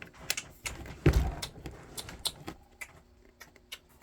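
LEGO pieces being handled and pressed together: a run of small, sharp plastic clicks and rattles, with one louder knock about a second in.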